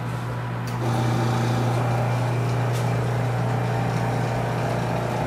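Vacuum pump of a UV exposure unit's vacuum frame running with a steady low hum, getting louder about a second in and then holding. The frame is not yet pulling a proper seal.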